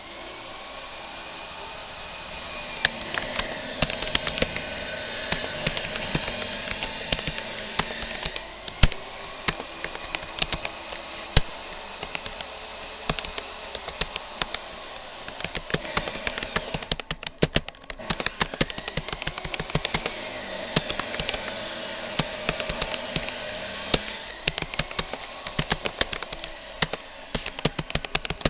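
Typing on a Rapoo computer keyboard: quick, irregular key clicks, growing denser near the end. Behind them is a steady rushing hiss that swells up and drops away twice.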